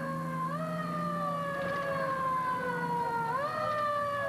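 Fire apparatus siren wailing. Its pitch jumps up quickly and then sinks slowly over about three seconds, twice over, above a low steady drone.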